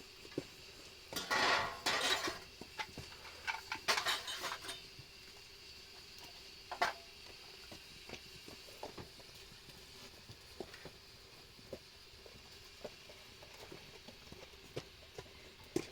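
Light clinks and knocks of small objects being handled, scattered and irregular, with two brief rasping noises about one and four seconds in.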